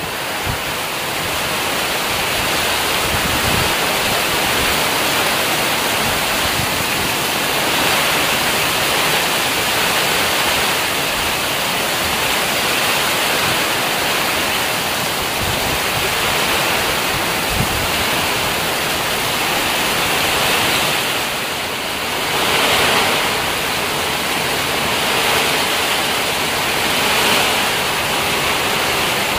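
Heavy downpour of rain, a loud steady hiss, swelling briefly a couple of times near the end.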